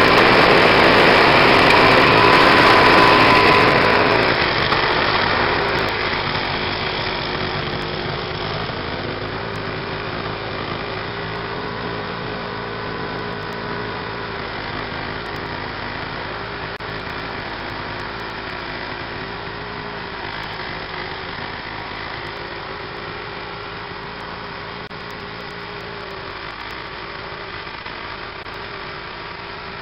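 Gas-engine walk-behind snow blower running steadily while clearing snow. It is loud at first and grows gradually fainter from about five seconds in as it moves away.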